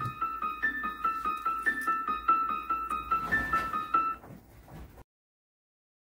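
Instrumental outro of a rap backing track: a high keyboard melody of short repeated notes over a faint low bass, fading out about four seconds in, then the audio cuts to dead silence.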